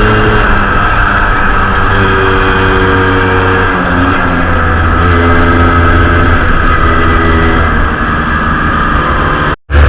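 Vespa 125 two-stroke single-cylinder scooter engine running under way, its note steady with a brief dip and change in pitch about four seconds in and easing off near the end. The sound cuts to silence for a moment just before the end.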